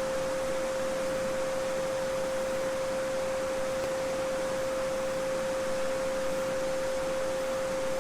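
A steady pure 528 Hz solfeggio tone held without a break, over the soft, even babbling of a small stream.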